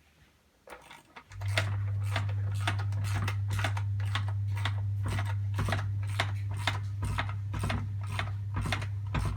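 A ratchet wrench clicks in a steady rhythm, about two to three clicks a second, as bolts are run in by hand before torquing. Under it a loud steady low hum starts abruptly about a second in.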